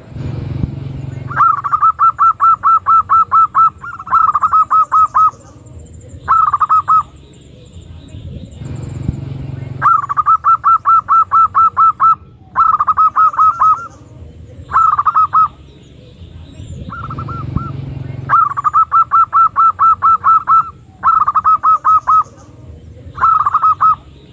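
Zebra dove (perkutut) cooing in quick runs of staccato notes, in groups of three runs (a long one, a shorter one, a brief one) that repeat about every eight seconds. It is the female's call, used as a lure for wild zebra doves.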